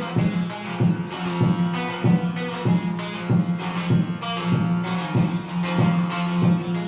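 Divan saz, a large long-necked bağlama with a carved bowl body, being played: a plucked melody over a steady ringing low drone, with strong strokes about twice a second.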